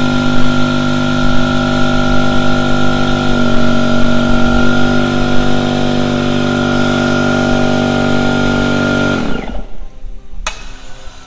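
A red 1-horsepower pancake air compressor running loud, rated at about 90 decibels: a steady motor-and-pump hum carrying several held tones. About nine seconds in it shuts off and winds down, falling in pitch, and a single sharp click follows a second later.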